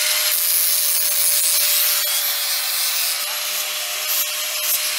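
A DeWalt cordless power tool running steadily on the car's underside, a hissing, grating cutting noise with a constant thin whine beneath it.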